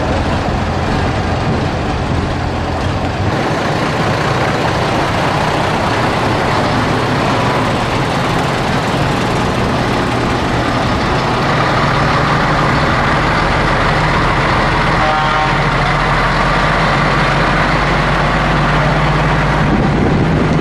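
Diesel engines of vintage lorries running as they drive slowly past one after another. One engine's low hum drops away a few seconds in, and another engine's steady note builds from about halfway.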